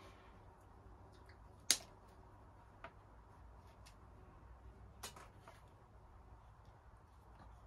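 Scattered sharp clicks and light taps of hard plastic and metal as a motorcycle GPS mount is handled and worked loose, the loudest a little under two seconds in and another about five seconds in, over a faint steady low hum.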